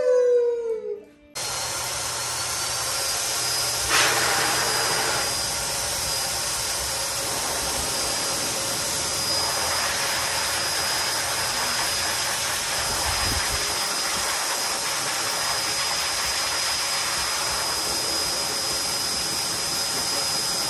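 A dog howls briefly, the pitch falling. From about a second in, a forced-air pet dryer with a hose blows steadily, a loud rushing noise with a thin high whine, with a sharp knock about four seconds in.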